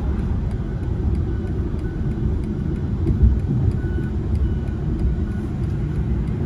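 Steady low rumble of a car in motion: road and engine noise inside the cabin, with no breaks.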